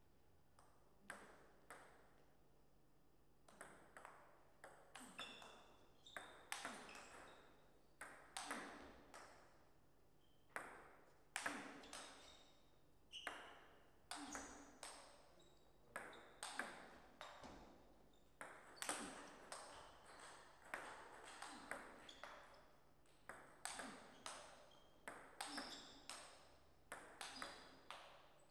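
Table tennis ball clicking off rubber paddles and bouncing on a Donic table in rallies: sharp pocks in quick irregular runs, separated by short pauses between points.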